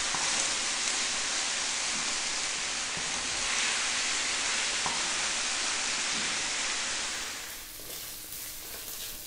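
Chicken breast strips and chopped garlic sizzling in hot oil in a wok while being stirred with a wooden spatula. The sizzle is steady, then drops noticeably quieter about seven and a half seconds in.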